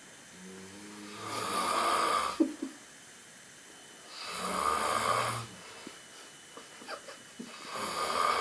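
A person snoring in sleep: three long snores about three and a half seconds apart, with quiet breathing between them.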